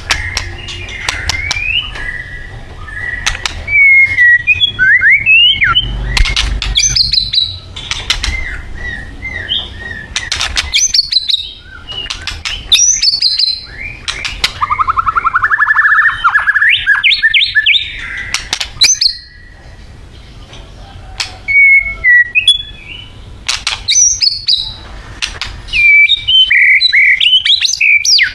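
White-rumped shama singing a loud, varied song: clear whistles, rising and falling glides and fast trills, broken by many sharp clicking notes.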